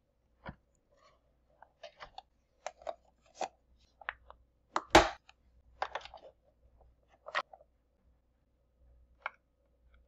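Hard plastic clicks and clunks as the Keurig K-Slim's brewer lid is handled and a K-Cup pod is set in the pod holder, with the loudest clunk about five seconds in.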